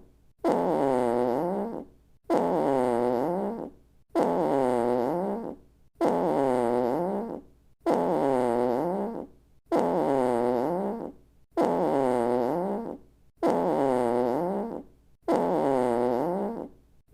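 Comedy fart sound effect: a pitched, buzzy fart about a second and a half long whose pitch sags and then rises again. The identical fart repeats about every two seconds.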